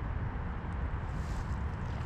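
Low, gusty wind rumble buffeting the microphone, with a faint brief hiss about a second in.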